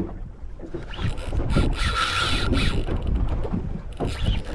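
Wind buffeting the microphone, a steady rumble. About two seconds in there is a brief, brighter hiss lasting under a second.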